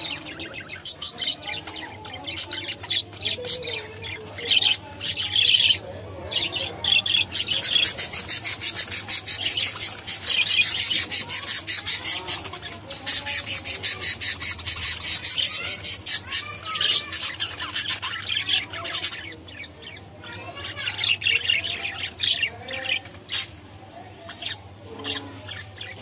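Budgerigars chattering: a fast twitter of rapid clicks and chirps in long runs, broken by short lulls.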